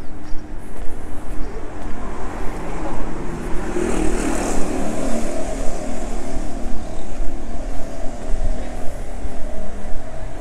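A car driving past on the street, growing louder to a peak about four seconds in and then fading away.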